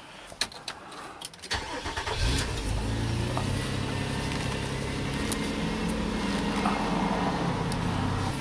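2005 Nissan Murano's 3.5-litre V6 starting about a second and a half in, after a few faint clicks, then settling into a steady idle.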